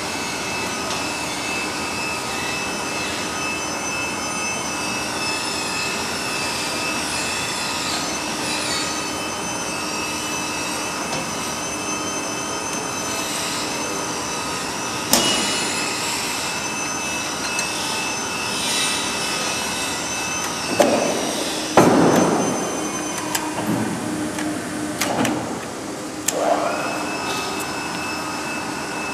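Steady electric hum of a Datien CT-300E guillotine paper cutter running, with a sharp metal clank about halfway through and a cluster of metallic knocks and clatters over several seconds as the knife is being installed. The hum drops out during the knocks and winds back up with a rising whine near the end.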